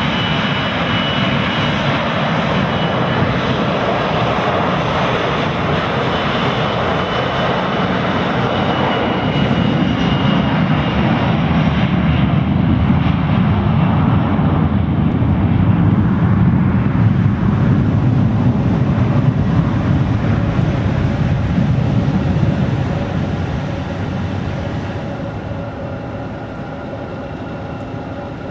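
Boeing 737 Classic's CFM56-3 turbofan engines at takeoff thrust during the takeoff roll, a steady roar with a thin high whine at first. It swells to its loudest as the jet passes, then fades over the last few seconds as it lifts off and climbs away.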